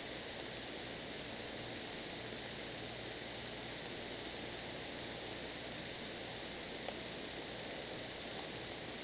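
Steady background hiss with a faint hum from the recording's microphone and room, unchanging throughout, with one faint tick about seven seconds in.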